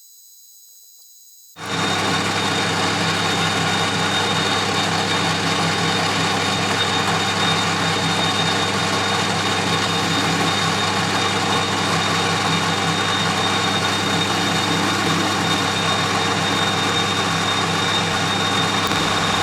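A workshop machine tool running steadily, with a constant high whine over a low hum. It comes in suddenly about a second and a half in.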